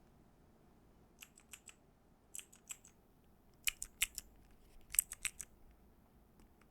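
Keystrokes on a custom Owlabs Spring mechanical keyboard with lubed and filmed Durock POM switches and PBT keycaps. The presses come in four quick clusters of four or five keys, about a second apart, after a quiet first second.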